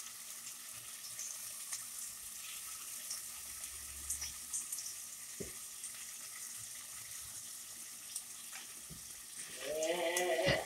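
Smoked meat frying in a little grease in a pot, a faint steady sizzle with scattered small ticks and pops. Near the end, a person's brief voiced sound rises above it.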